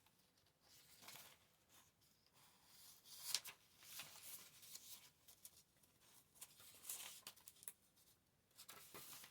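Faint rustling and handling of paper, a few soft crinkles as papers are sorted through, the clearest about three seconds in.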